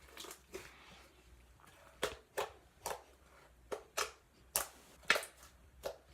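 Butter slime being squished and poked by hand, giving about ten sharp, irregular clicking pops.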